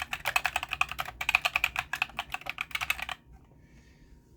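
Fast typing on a mechanical keyboard with black linear switches (the Asceny GK61), a rapid run of key clacks that stops about three seconds in.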